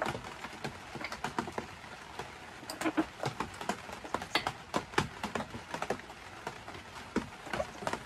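Irregular light clicks and ticks of a wrench working a spark plug tight in a snowmobile engine's cylinder head.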